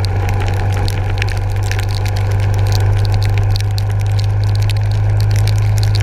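Yamaha SR400 single-cylinder motorcycle running at road speed in heavy rain, under a steady low rumble of wind on the microphone, with many small ticks from raindrops hitting the camera housing.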